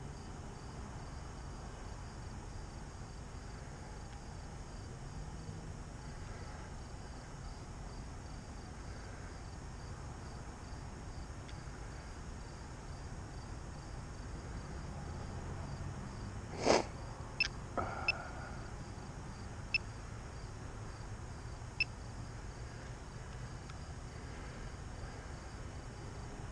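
Steady outdoor insect chorus, a faint evenly pulsing cricket-like chirping over a low background hum. A few sharp clicks come about two-thirds of the way through.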